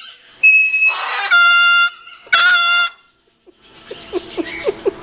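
Cockatoo imitating a truck's reversing alarm: three loud, steady beeps of about half a second each, in an even series. Near the end, quieter scratchy sounds.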